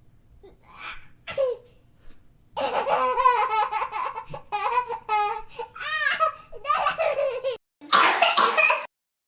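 A cartoon character's voice laughing in a long run of repeated pitched ha's, then a short harsh cough near the end that cuts off suddenly.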